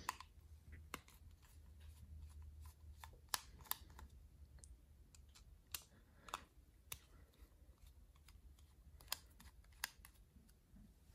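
Faint, irregular light clicks and ticks of a small screwdriver's metal tip on the scale screws of a Spyderco Shaman folding knife as they are undone, over a low steady hum.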